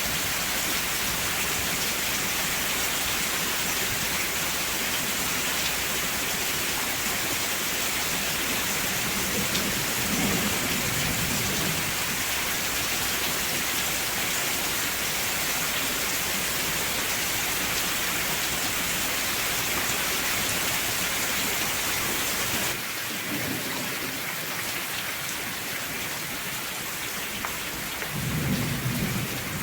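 Steady heavy rainfall, a dense even hiss, with low rolls of thunder about ten seconds in and again near the end. About two-thirds of the way through the rain drops suddenly a little in level and loses its deepest rumble.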